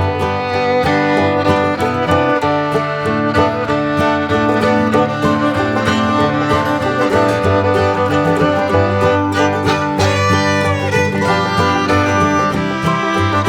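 Background bluegrass music with fiddle, guitar and banjo at a steady, bouncy beat.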